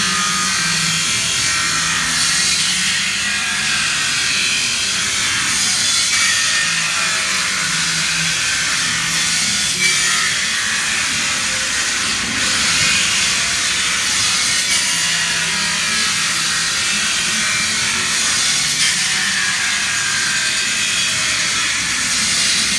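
Evolution circular saw with a mild-steel abrasive blade cutting through steel street grating: a loud, steady high grinding hiss over the motor's low hum, which rises and dips slightly as the blade bites.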